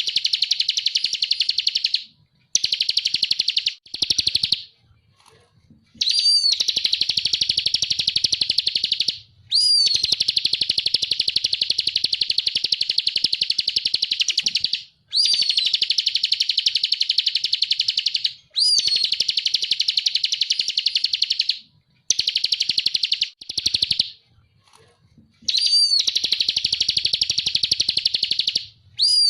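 Bar-winged prinia (ciblek kristal) singing in full voice: long, very fast trills of repeated high notes, each bout opening with a quick up-and-down whistle, with short pauses between bouts.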